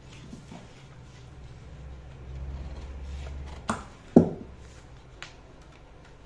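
A low hum swells and stops about three and a half seconds in. Right after come two sharp knocks about half a second apart, the second the loudest, then a fainter tap about a second later.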